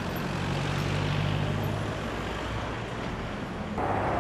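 Street traffic: a car's engine hum and tyre noise swell as it drives past, then fade. About four seconds in, the sound cuts to a different, brighter traffic noise.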